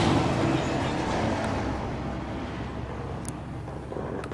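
A road vehicle going by: a rushing rumble that is loudest at the start and slowly fades away, with a single light click about three seconds in.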